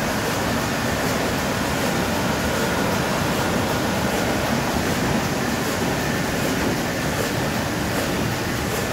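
Industrial thermal laminator with a Heidelberg Speedmaster sheet feeder and flying knife cross cutter running at production speed, laminating 5 mil PET film on both sides: a loud, steady machine noise with a faint, regular tick a little more than once a second.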